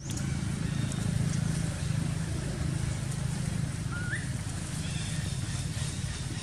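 Steady low outdoor rumble, with one short rising chirp-like call about four seconds in.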